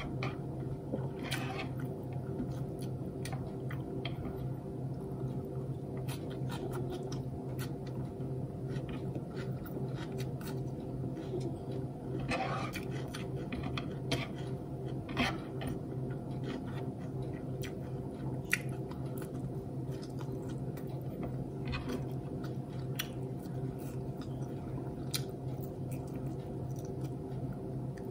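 Person chewing food with wet mouth smacks and scattered short clicks, over a steady low hum.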